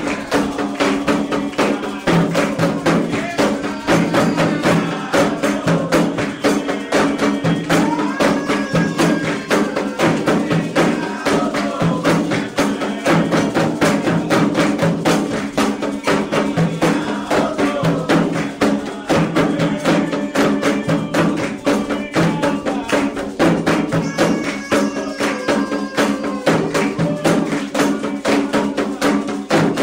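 Candomblé ritual drumming: atabaque hand drums beating a fast, steady rhythm with an agogô bell, under a group singing a sacred song.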